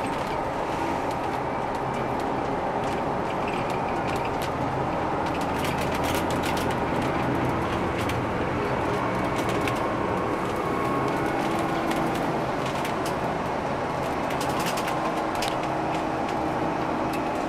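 Inside an Alexander Dennis Enviro500 double-decker bus on the move: steady engine hum and road rumble, with frequent short rattles and clicks from the bus body and fittings.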